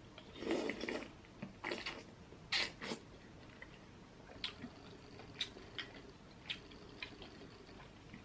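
Close-miked eating sounds: faint wet chewing and mouth clicks, with a few sharper clicks in the first three seconds and scattered soft ticks after that.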